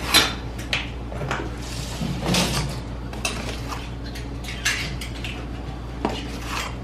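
Kitchen utensil noises while flour is measured: a blue plastic measuring cup tapping and scraping against a glass mixing bowl. There is a string of light clicks and taps, with a longer scrape about two seconds in.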